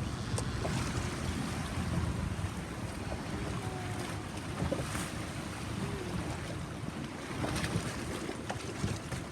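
A boat under way: its motor running low and steady under water washing past the hull, with wind buffeting the microphone.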